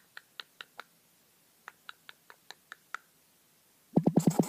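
A scatter of small, sharp clicks in two loose runs. Then, near the end, a loud, fast, steady chopping starts, about fourteen beats a second: a helicopter rotor sound for a toy Lego ambulance helicopter.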